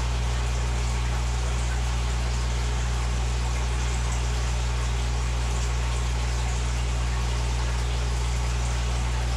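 Aquarium air pump humming steadily, with a constant hiss of bubbling water from the newly connected air stone.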